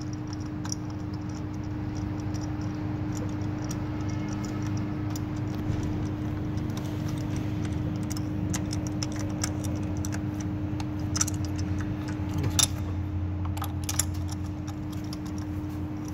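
Light metallic clicks and ticks of a spark plug socket, extension and ratchet turning new spark plugs down into the cylinder head, over a steady background hum.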